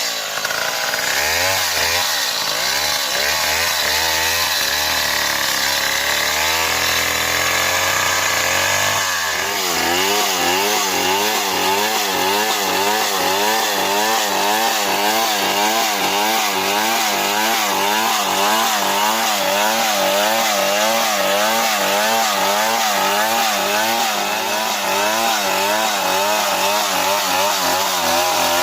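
Large STIHL MS 070 two-stroke chainsaw running hard without a break, its engine pitch wavering up and down. The tone shifts about nine seconds in, then keeps up a steady wavering pattern.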